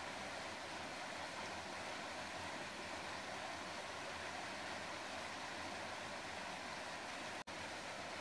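Running water making a steady, even rush, cut by a brief dropout near the end.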